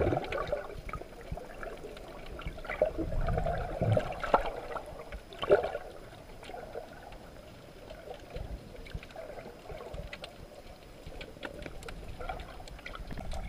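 Muffled water movement heard from underwater, with a few louder swishes and scattered faint clicks.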